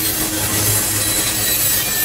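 Freight train of tank cars rolling past close by, steel wheels squealing and grinding against the rails over a steady low rumble.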